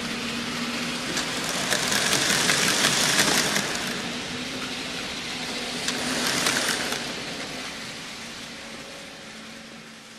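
N-gauge model freight train of boxcars rolling past: a steady rushing rattle of small wheels on the track with fine clicks. It swells twice, about two seconds in and again around six seconds, then fades.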